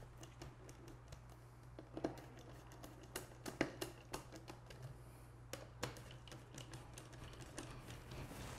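Screwdriver tightening the screws that fasten a mid-range speaker to its plastic housing: a run of small irregular clicks and ticks, over a steady low hum.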